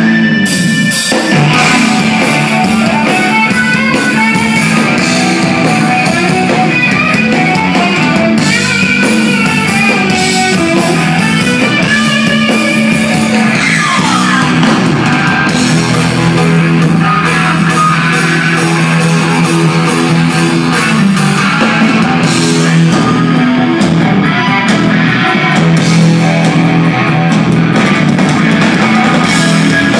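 Live instrumental rock played by a trio on electric guitar, electric bass and drum kit, loud and dense throughout, with a falling slide in pitch about halfway through.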